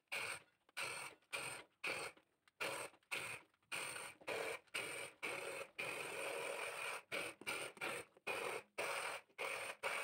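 Electric hand blender running in a bowl of pomegranate arils, pulping them to juice. It comes through faint and broken into short bursts, a few each second.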